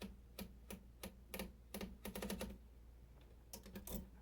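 1950s Royal manual typewriter's mechanism clicking: a string of sharp, irregular mechanical clicks about two to three a second, with a quick run of clicks about two seconds in and another near the end.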